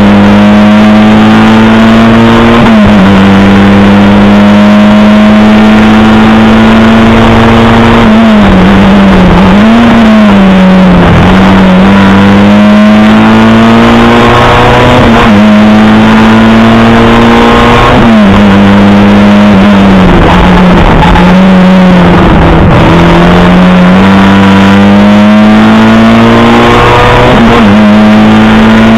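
Lada 2107 rally car's engine heard from inside the cabin, very loud, driven hard on a special stage. Its pitch climbs through each gear and drops back at the upshifts, about 3, 15, 18 and 27 seconds in. Around ten seconds and again around twenty-one seconds the pitch dips and wavers as the driver lifts and shifts down to slow.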